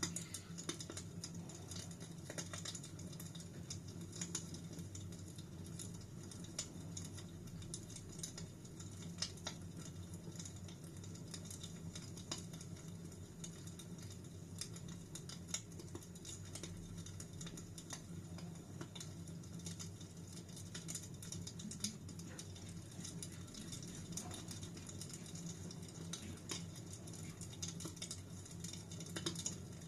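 Wood fire crackling in a fireplace: frequent irregular small snaps and pops over a low steady rumble.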